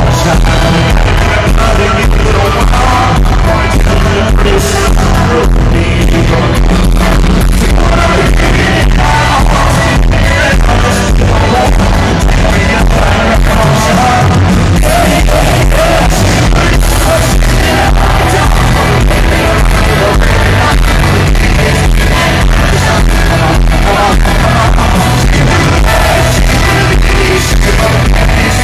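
A live band playing loudly with a male lead singer, recorded from within the concert crowd.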